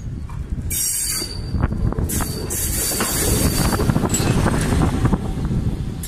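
Rail-mounted track maintenance vehicle running past close by: a steady low rumble with irregular wheel clatter, and short bursts of high-pitched squeal about a second in, around two seconds in, and again after four seconds.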